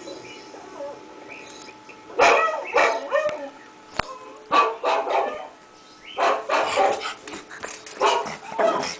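Dog barking in four bursts of quick, repeated barks, starting about two seconds in, with a single sharp click near the middle.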